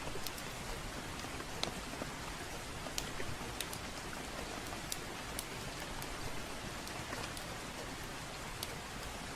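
Steady rainfall, with irregular sharp crackles and pops of a wood fire burning in a fireplace.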